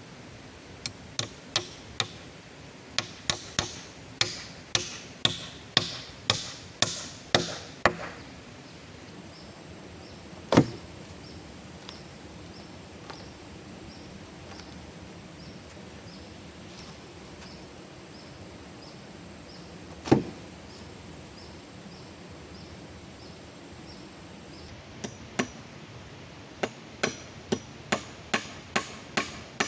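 Chopping wood with a hand tool: a run of sharp strikes about one and a half a second, then two single heavier blows spaced well apart, then another run of strikes near the end, over a steady background hiss.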